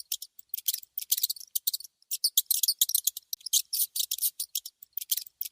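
A rat making rapid, irregular high-pitched clicks and scratchy chirps in quick clusters.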